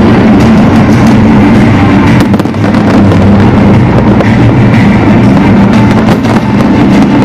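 Fireworks going off in a dense, continuous barrage of bangs over a deep rumble, very loud.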